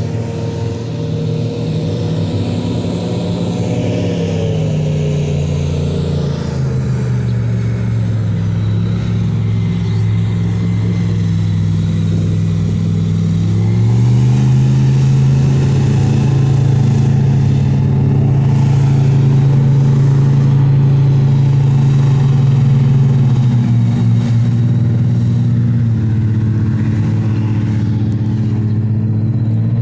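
Airboat's engine and rear propeller running hard as the boat speeds along the river: a loud, steady engine hum. The pitch drops a few seconds in, then rises and grows louder about halfway through.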